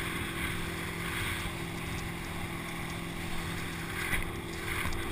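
Steady rush of wind and splashing water on the microphone of a camera riding a towed inner tube as it skims over a motorboat's wake, with the tow boat's engine as a faint low drone underneath.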